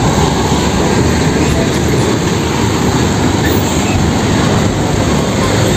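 Steady road traffic noise, with vehicles running close by.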